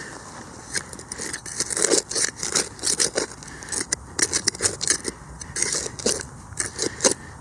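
Digging into turf and soil to recover a metal-detector target: a quick, irregular run of scrapes and crunches as the digging tool cuts and levers the earth.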